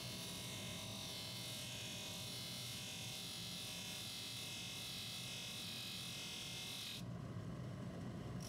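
Bench polishing motor running steadily with a cloth polishing wheel, while a small watch part is pressed against the spinning wheel, giving a steady hiss over the motor hum. The hiss stops about seven seconds in as the part is lifted off, then starts again at the very end.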